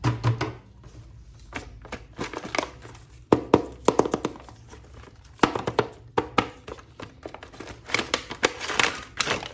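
Packaging crinkling and tearing in irregular bursts as an action figure is unwrapped.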